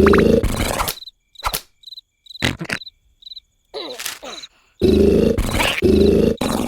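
Cartoon snoring sound effects: loud, low, buzzing blasts, one about a second long at the start, then a quick run of them from about five seconds in. In the quiet gap between, cricket chirps pulse in short high trills, with a couple of sharp knocks.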